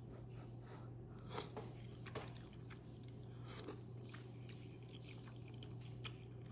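Close-miked chewing of a chewy rice cake: soft wet smacks and mouth clicks, with a few sharper ones about a second and a half in, just after two seconds, near four seconds and near the end.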